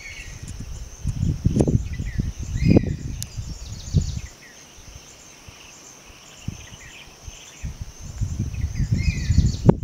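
Forest ambience: a steady high-pitched insect drone with short bird chirps, overlaid by irregular low rumbling noise in gusts during the first four seconds and again near the end.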